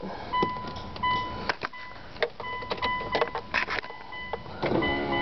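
A 2003 Mitsubishi Galant's interior warning chime sounds a series of short electronic beeps. Clicks and knocks from handling inside the car are mixed in. Music begins near the end.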